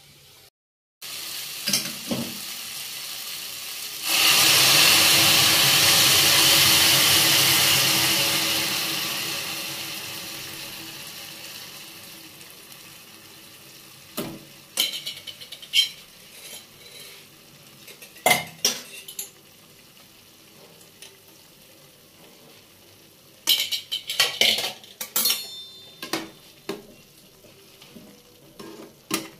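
Apple pieces frying in a kadai with a steady sizzle that jumps to a loud hiss about four seconds in, as water goes into the hot pan, then fades over several seconds. After that a steel ladle stirs the apples, clinking and scraping against the pan, most often near the end.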